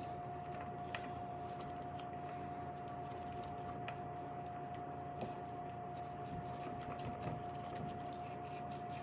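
A cloth rag being rubbed over and into the frame of a Taurus G3C 9mm pistol, giving soft scrubbing with scattered light clicks of handling. A steady faint high tone hums underneath throughout.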